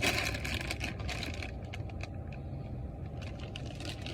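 Plastic snack bag crinkling and rustling as it is handled and opened. The crinkling is loudest in the first second and a half, dies down, then comes back near the end.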